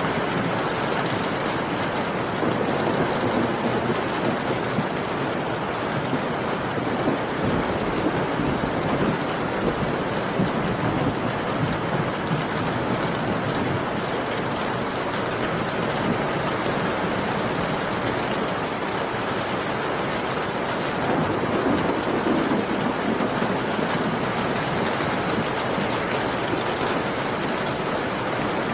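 Steady rain, with two long, low thunder rumbles: one a few seconds in and another about three quarters of the way through.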